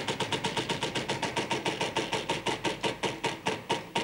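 Game-show prize wheel spinning down, its pointer clicking against the pegs around the rim. The clicks come about ten a second at first and slow steadily to about three a second as the wheel comes to rest.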